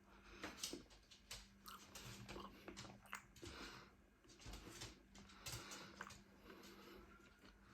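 Faint close-up chewing of pizza: soft mouth clicks and smacks at irregular intervals over a low steady hum.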